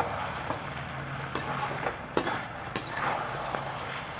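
Perforated metal ladle stirring chicken in thick masala in a metal kadai while it sizzles, with a few sharp clinks of the ladle against the pan around the middle. This is the bhuna stage, the chicken sautéed in its spices over medium heat.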